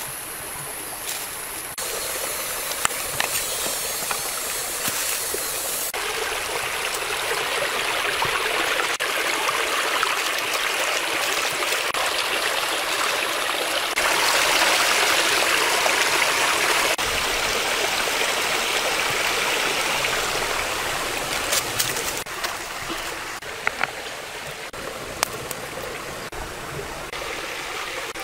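Stream water running steadily, louder in the middle stretch, with a few sharp clicks scattered through it.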